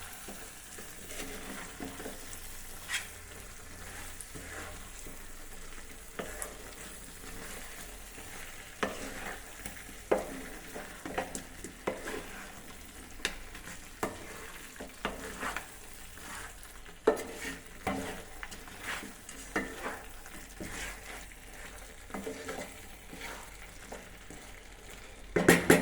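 Spiced chicken curry sizzling in a pan while a spoon stirs it, with irregular scrapes and clicks of the spoon against the pan and a louder clatter near the end.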